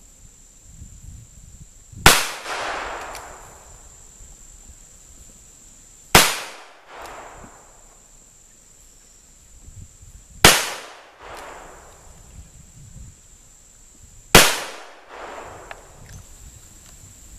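Four gunshots from a .357 firing .38 Special handloads with 125-grain Rainier bullets, spaced about four seconds apart, each followed by an echo that dies away over about a second.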